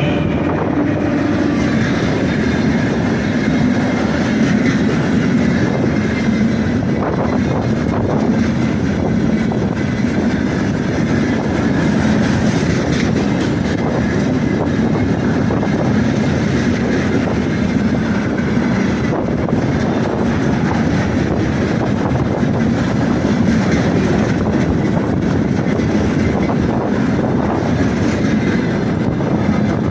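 Tank wagons of a freight train rolling past, the wheels running on the rails with a loud, steady noise.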